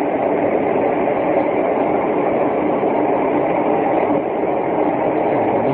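A steady, loud droning roar of unidentified origin, heard without a break; the recorder points it out simply as "that noise" and does not know what it is.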